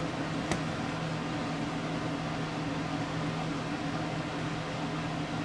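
Steady low hum and hiss of background machinery, like a fan, with a single light click about half a second in.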